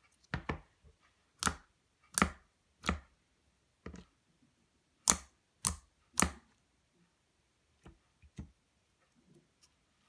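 Fingers poking and pressing into glossy clear glue-based slime in a plastic tub, giving a string of sharp sticky pops and clicks at irregular intervals, about eight louder ones and a few faint ones.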